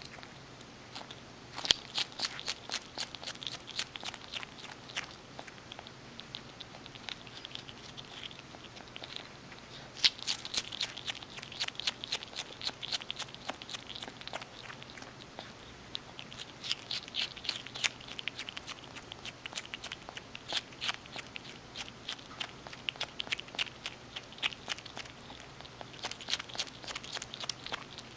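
Striped skunk chewing and crunching food up close: sharp crunchy clicks coming in bouts of a few seconds with quieter pauses between.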